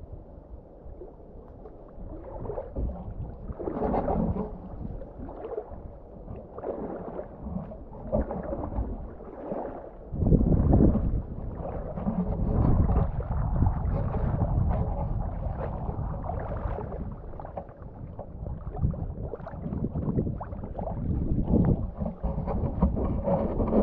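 Water sloshing and splashing around rubber waders as they wade step by step through shallow lake water, in irregular surges. About ten seconds in, a heavier low rumble joins in and stays.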